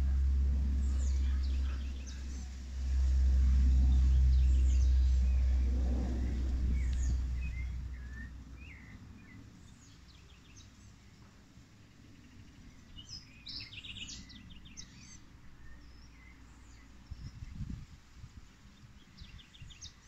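Outdoor birds chirping, with quick high trills near the middle and again near the end. A loud low rumble fills the first eight seconds and then dies away.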